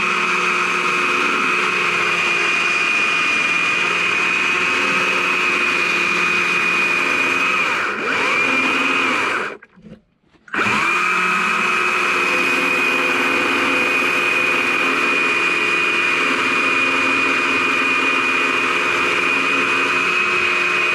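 Small electric chainsaw running at full speed, its chain cutting straight down into a small log, with a steady high whine. Just before halfway it is let off and winds down to a stop for about half a second, then starts again and cuts on.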